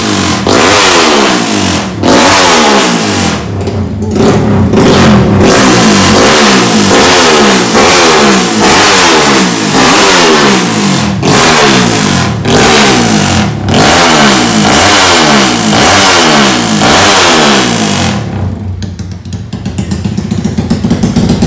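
Motorcycle engine revved over and over in quick blips, the pitch rising and falling back about once a second, easing off briefly near the end before picking up again.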